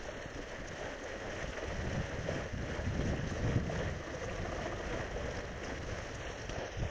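Steady wind buffeting the microphone on an open lakeshore, with lake water lapping at the rocks, a little stronger in the middle.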